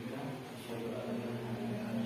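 A man's voice talking indistinctly, low-pitched and steady, with no other clear sound.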